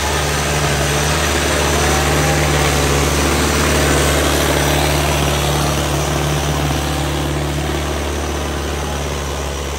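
Preet tractor's diesel engine running hard and steady under a heavy pulling load, its tyres churning through soft dug soil.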